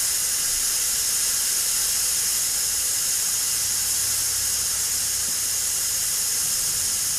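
Air hissing steadily out of a car tire's valve stem as the valve core is held open, deflating the tire to trigger the tire-pressure-monitor sensor relearn.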